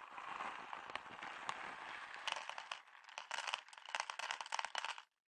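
Plastic bag of Purina Friskies dry cat food crinkling as it is handled, then dry kibble rattling out of it into a plastic bowl as a run of quick clicks that stops about five seconds in. This is the feeding sound that the cat knows and comes running to.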